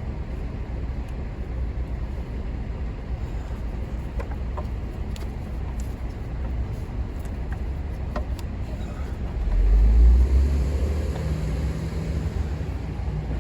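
Steady low rumble of street traffic, with a heavier vehicle passing about ten seconds in and a few light clicks scattered through the middle.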